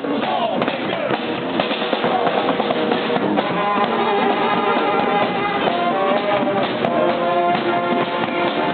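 Street brass band playing, horns over drums, with held brass notes standing out from about four seconds in.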